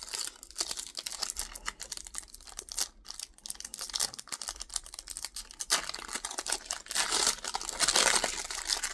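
Plastic foil wrapper of a small Pokémon card booster pack crinkling and crackling as it is handled and opened. The crinkling gets louder and denser about six seconds in.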